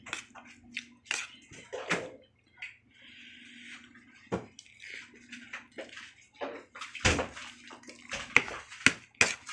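Eating sounds at a meal with soup: scattered clicks of a spoon against a plate or bowl, and soup sloshing and being spooned up.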